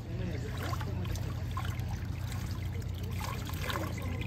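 Swimming-pool water trickling and splashing at the pool edge, over a steady low hum.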